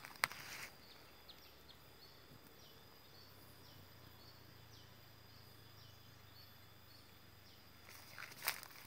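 Garden ambience: a steady high insect drone, with short falling chirps repeated about three times a second for the first few seconds. Footsteps crunch on dry leaf litter just after the start and again near the end.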